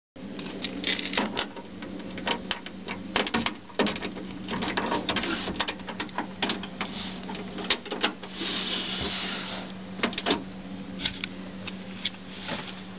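Irregular clicks, knocks and scraping rustles of hands handling a pickup's door panel and its parts, over a steady low hum.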